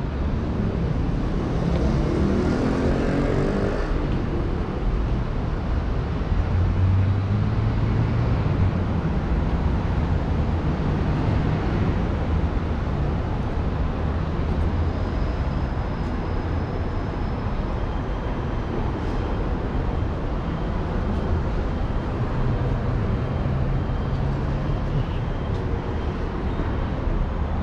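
City street traffic: cars and engines running by in a steady rumble, with one engine note rising in pitch a few seconds in.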